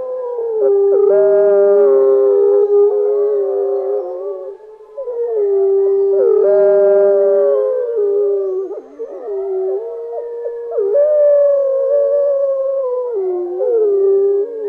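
Several wolves howling together in overlapping long howls, one held on a steady pitch while the others slide up and down around it. There is a brief lull about four and a half seconds in.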